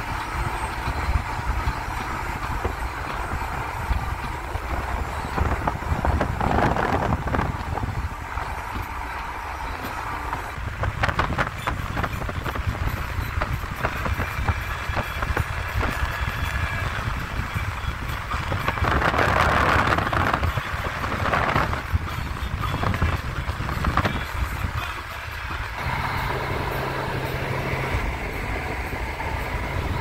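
Road and engine noise of a moving car heard from inside the car: a steady low rumble of tyres and engine, swelling louder a few times.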